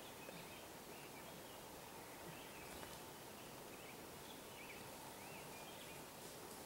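Quiet woodland ambience: a faint steady hiss with a bird's short, high chirps repeating every second or so.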